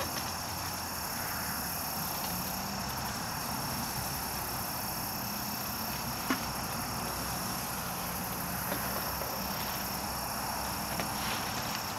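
Steady chorus of chirping crickets, with a few faint knocks and ticks about six and nine seconds in.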